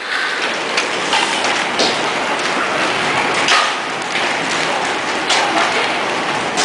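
Storm wind and rain making a steady loud rushing noise, with scattered sharp knocks through it.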